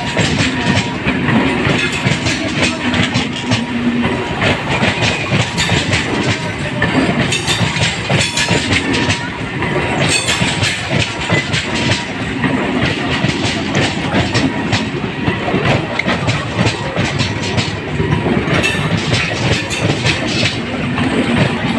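Electric suburban local train running on the rails, its wheels clattering steadily over the track joints in a continuous, dense rattle.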